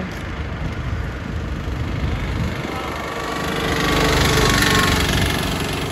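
Auto-rickshaw engine running as the three-wheeler approaches and passes close by, loudest about four seconds in.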